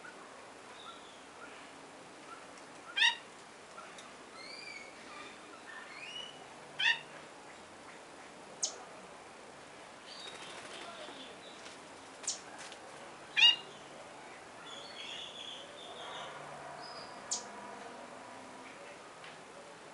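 Birds calling: three loud, short, harsh calls spaced a few seconds apart, with a few sharp high chips and softer chirps between them.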